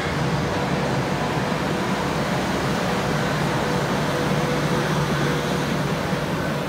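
Farm tractor with a front loader, its engine running steadily as it drives across the arena: a constant low drone with no change in level.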